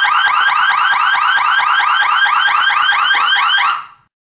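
Electronic warning horn of a model car-door safety mechanism sounding a loud, fast repeating warble alarm of about six chirps a second, signalling that the door is open. It cuts off shortly before the end.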